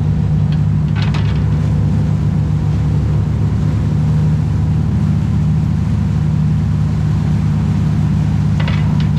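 Sport fishing boat's engine running steadily, a loud, even low drone.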